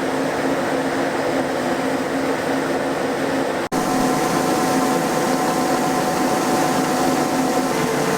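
Grain-handling machinery running steadily, an engine and grain auger emptying canola from a bin, with a steady hum of several tones. The sound drops out for an instant a little over a third of the way through.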